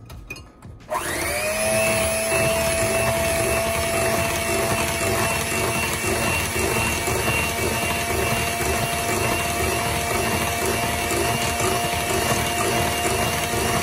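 Handheld electric mixer switched on about a second in, its motor whine rising as it comes up to speed, then running steadily with the beaters whirring through thick pie batter as an egg is beaten in.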